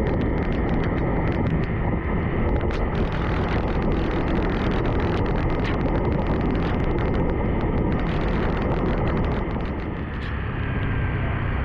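Wind rushing over the camera microphone on a Yamaha WR155 ridden in heavy rain, with the bike's single-cylinder engine running underneath. Many small taps of raindrops hitting the camera are scattered through it.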